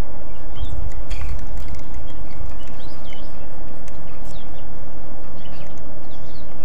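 Shimano Stradic CI4+ spinning reel being cranked to retrieve a topwater frog lure, over scattered high chirping of frogs from the pond. A low rumble about a second in.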